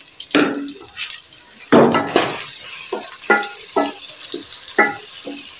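Wooden spoon stirring and scraping round a metal pot in a series of irregular strokes, some with a brief metallic ring, while browned onions and garlic-ginger paste sizzle in hot ghee under a steady hiss.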